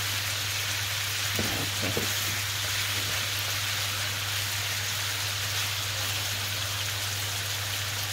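Lamb pieces sizzling steadily as they sear and brown in hot oil in a frying pan.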